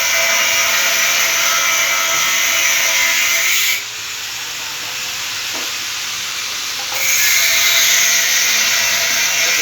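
Bosch angle grinder cutting, a loud harsh hiss over a steady whine. The cutting noise drops for about three seconds from about four seconds in, then comes back at full level.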